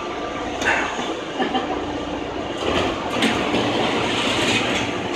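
Airport people-mover train running, heard from inside the car: a steady rumble and hiss with a faint motor whine, and sharp rattles about a second in and again around three seconds in.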